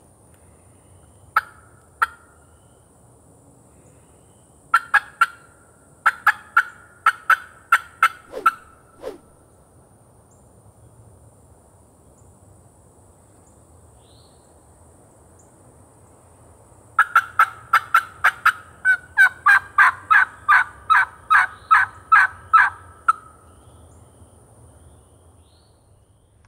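Turkey mouth call (diaphragm yelper) imitating a hen: two single notes, then a run of about nine yelps, and after a pause a longer, faster series of about fifteen yelps, used to strike a gobbler.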